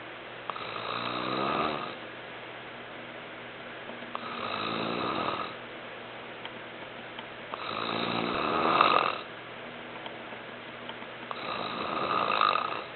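A sleeping man snoring: four snores about every three and a half to four seconds, each lasting about a second and a half and growing louder toward its end.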